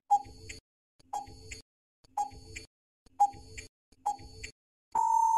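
Countdown timer sound effect: five ticks about a second apart, each with a softer tock just after, then a steady beep about a second long near the end, marking time up.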